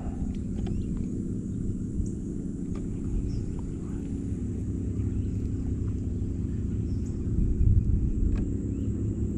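Steady low outdoor rumble, with a few faint high chirps and light ticks scattered through it.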